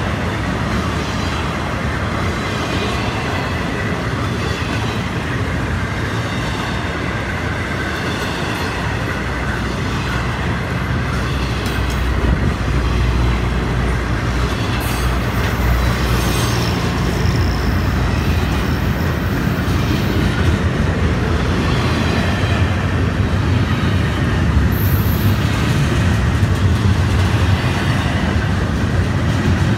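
Florida East Coast intermodal freight train's container and piggyback-trailer flatcars rolling past close by: steel wheels running on the rails, loud and steady, a little louder from about twelve seconds in.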